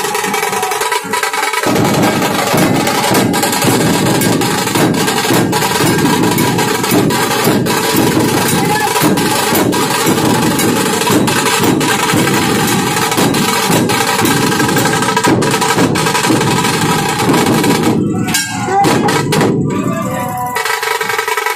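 Music with steady held tones, overlaid from a couple of seconds in by a dense, rapid run of sharp cracks or drum strokes that breaks off briefly near the end.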